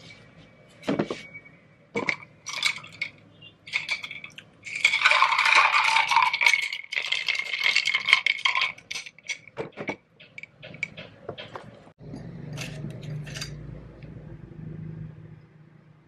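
Glass jar of milk being handled: a run of clinks and taps, with a louder, denser stretch of rattling about five seconds in. Near the end a low steady hum runs for about three seconds.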